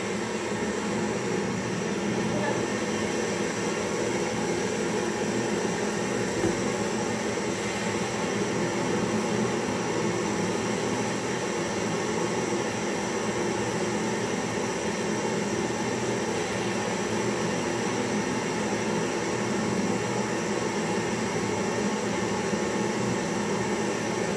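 Portable butane gas-canister torch burning steadily against a small steel traditional popcorn machine, a continuous even hiss of flame.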